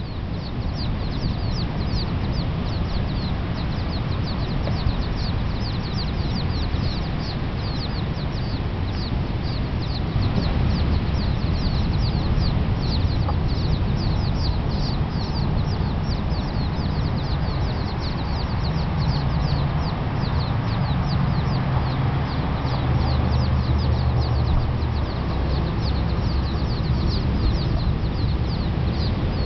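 A brood of chicks peeping nonstop: many short, high calls that slide downward, overlapping several at a time. A steady low rumble runs underneath.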